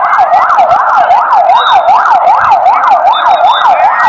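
Ambulance siren sounding in a fast yelp, its pitch sweeping up and down about three times a second without a break.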